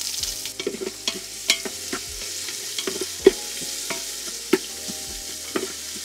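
Sliced onions and curry leaves sizzling in hot coconut oil in a metal pot, with a spatula scraping and knocking against the pot as they are stirred. A steady frying hiss runs under irregular sharp scrapes.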